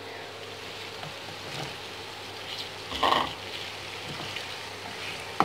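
Cubed raw potatoes added to a pan of fried qeema over a steady low hiss; about three seconds in they land in the hot pan with a brief burst of sizzling, and a sharp click comes near the end.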